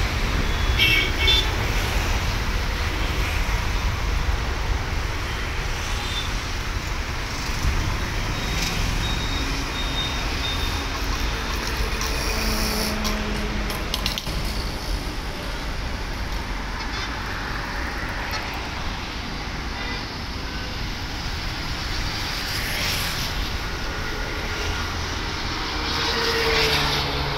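Jet airliner taking off, its engines a steady low rumble that slowly fades as it climbs away, mixed with road traffic noise and a few short horn toots.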